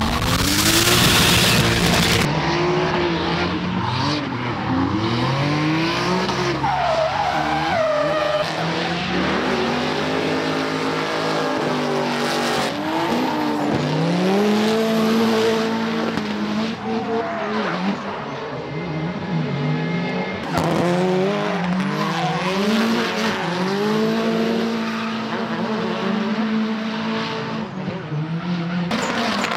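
Drift cars' engines revving hard, their pitch climbing and dropping over and over as the throttle is worked through the slides, with tyres squealing. A loud rushing burst comes in the first two seconds.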